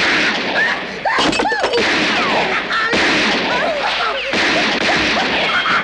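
Loud, steady hissing rush with people shouting and yelling over it.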